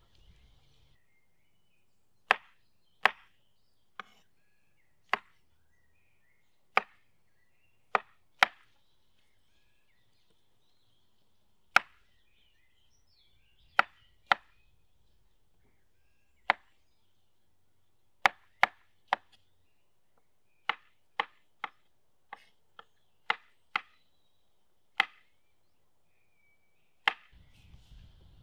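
Chef's knife slicing white button mushrooms on a wooden cutting board: sharp knocks of the blade striking the board, irregularly spaced about a second apart, with a quicker run of knocks about two-thirds of the way through.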